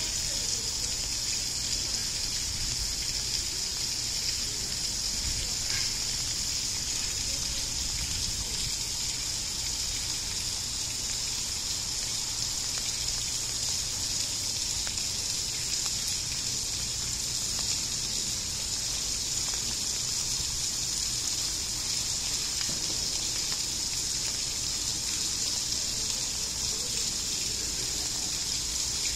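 Steady gushing hiss of running water, unchanging throughout.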